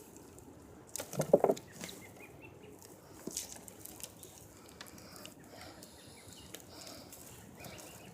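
Hands sifting and rustling through loose potting soil, with scattered scrapes and soft knocks of soil and sweet potato tubers. A brief low pitched sound comes about a second in.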